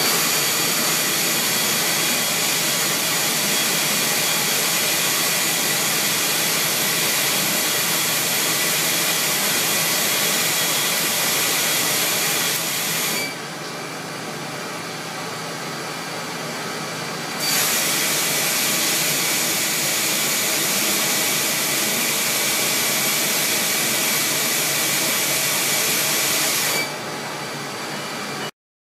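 Four-way cross fogger nozzle spraying pressurised water as fine mist, a loud steady hiss. About 13 seconds in the spray hiss cuts off, leaving a quieter, lower steady noise. It comes back about four seconds later and cuts off again near the end.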